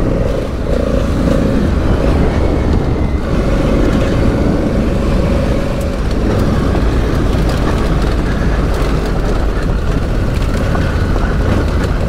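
Honda Africa Twin CRF1100's parallel-twin engine running steadily while the bike is ridden, under a heavy low rumble of wind and road noise.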